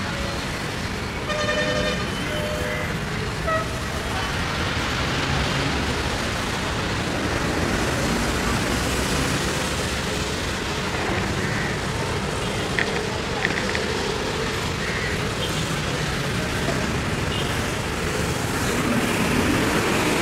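Steady road traffic noise from the surrounding city streets, with a vehicle horn tooting briefly about a second and a half in.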